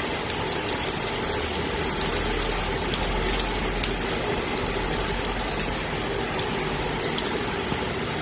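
Sliced garlic sizzling steadily in hot cooking oil in a pot, stirred with a silicone spatula. A low hum joins about two seconds in and fades out near seven seconds.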